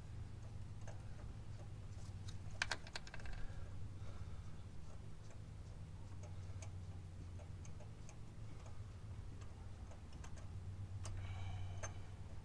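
Light metallic clicks and taps of a ratchet, socket extension and spark plug socket being worked onto a spark plug deep in an engine bay. There is a quick flurry of clicks about two and a half seconds in and another near the end, over a steady low hum.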